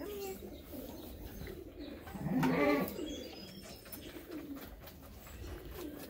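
A sheep bleats once, about two and a half seconds in, with a few fainter short calls around it.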